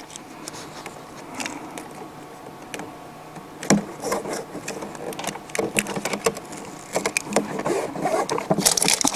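Hands working adhesive-backed Velcro strips onto the inside of a motorcycle hard-saddlebag lid: light rustling with scattered taps and clicks, growing busier near the end.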